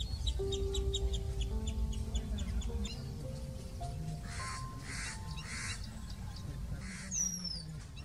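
Background music with long held notes, mixed with bird calls: a rapid run of short high chirps, about five a second, in the first few seconds, a few harsh high calls around the middle, and one falling whistle near the end.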